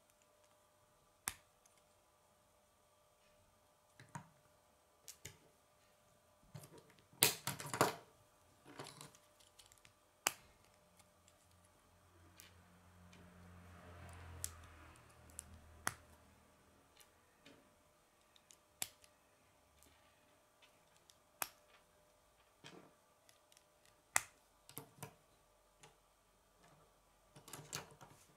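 Plastic K'nex pieces clicking as they are snapped together and handled. There are scattered single clicks throughout, with a louder cluster of clatter about seven seconds in.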